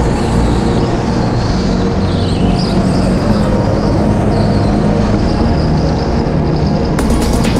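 Go-kart engine running hard, heard on board the kart, its pitch shifting as it is driven through the corners. Music with a steady beat comes in near the end.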